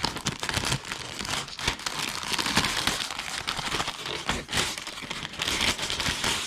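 Thin plastic bag crinkling and rustling, a dense run of small crackles as model-kit runners are handled and unwrapped from their packaging.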